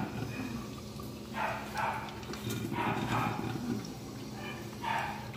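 Electric drip coffee maker gurgling and sputtering in short irregular bursts, about a second apart, over a steady low hum, as the heated water is pushed up through the machine mid-brew.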